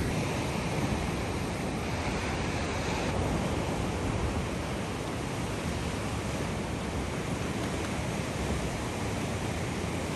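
Ocean surf washing steadily against a rock platform, with wind on the microphone.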